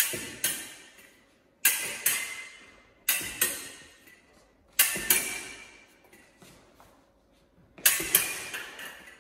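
Steel foil blades clashing: sharp metallic clinks in quick pairs, each ringing briefly, five pairs in all, with a longer pause before the last pair near the end.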